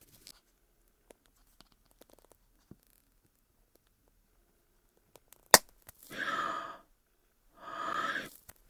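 Toy slime and its small plastic container being handled: faint scattered clicks, one sharp plastic click about five and a half seconds in, then two short squelching swells of about a second each.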